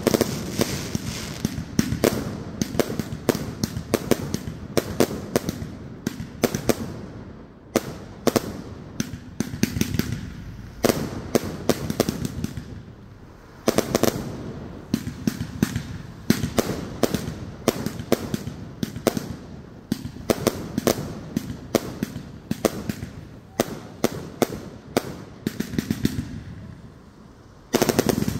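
Fireworks display: rapid volleys of bangs and crackling shell bursts in dense clusters, with short lulls between barrages.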